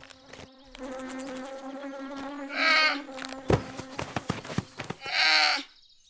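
Young sun bear cub (cartoon sound effect) giving two short bleating cries, about two and a half seconds apart, over a steady low buzzing hum, with a few sharp knocks between the cries.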